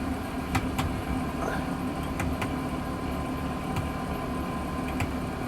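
Steady mechanical hum with a few light clicks scattered through.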